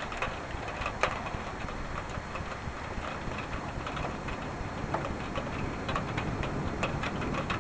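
Rain from a weak thunderstorm: a steady hiss with irregular drops ticking close by, several a second.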